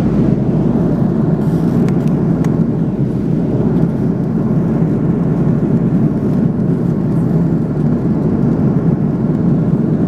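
Steady cabin noise of an airliner in cruise: an even, deep rush of engines and airflow heard from inside the cabin.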